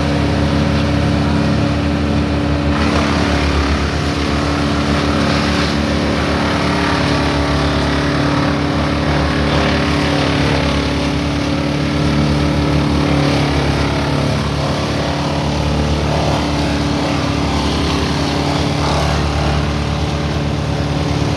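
Engine-driven wood chipper running steadily and grinding branches into small pieces. A constant engine drone sits under a rougher grinding noise that grows from about three seconds in.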